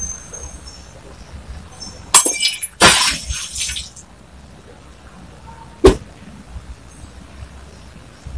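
Sound effects for an animated subscribe-button graphic: a faint high tinkle at the start, then a loud glass-like shattering crash with a ringing tail about two to four seconds in, and a single sharp click near six seconds.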